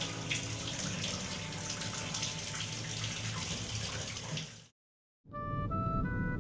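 Shower water spraying in a steady hiss, cut off abruptly about three-quarters of the way through. After a moment of silence, music with a few held notes begins.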